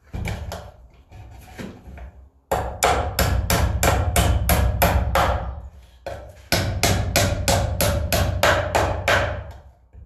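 Claw hammer nailing a wooden birdhouse: two quick, even runs of sharp blows, about four a second, with a short pause between. Softer knocks at the start as the box is handled.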